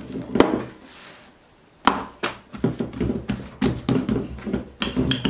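Wooden rolling pin and hands working dough on a wooden tabletop: a sharp knock about half a second in, a brief lull, then another knock and a quick run of knocks and thuds, three or four a second.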